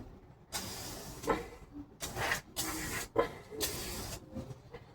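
Aerosol spray can, likely lubricant, hissing in four short bursts, with small clicks between them.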